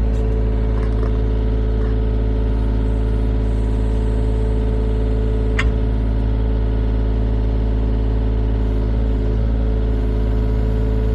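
Excavator's diesel engine running at a steady speed, with one sharp click about five and a half seconds in.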